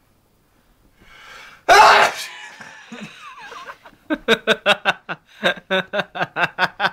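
A man sneezes, set off by tissue pushed up his nose: a short breathy intake, then one loud explosive sneeze about two seconds in with a trailing exhale. About four seconds in, rapid rhythmic laughter starts, about four bursts a second.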